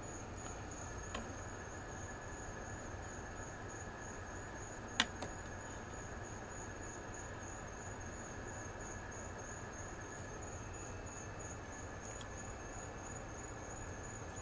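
A knife clicks sharply once on a plastic cutting board about five seconds in, with a smaller click about a second in, over a faint steady high-pitched trill and a low hum.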